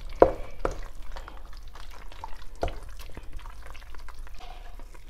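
Wooden spoon stirring a thick stew of amaranth greens in peanut sauce in a stainless-steel pot: irregular wet scraping and squelching, with scattered light taps of the spoon against the pot.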